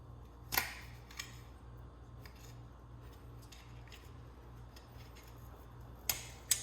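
A few short, sharp clicks and clatters of hard parts being handled: a strong one about half a second in, a lighter one a second in, and two more near the end, over a steady low hum.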